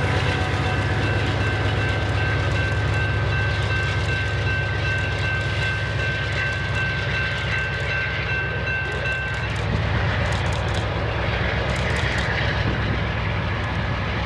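The rear distributed-power diesel locomotives of a BNSF double-stack intermodal train, GE Dash 9-44CW and AC4400CW units, pull away with a steady low rumble. A steady high-pitched ringing tone sounds over it and stops about two-thirds of the way through.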